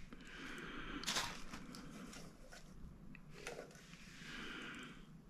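Faint rustling and crinkling as the unpacked smoke machine and its packaging are handled, with a sharp tap about a second in and a few lighter ticks.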